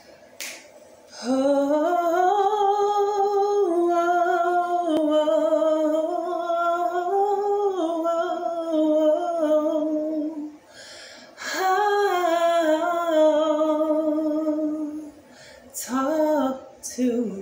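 A woman humming a slow wordless melody in long held notes with vibrato, in three phrases: a long one, a shorter one after a brief breath, and a short one near the end.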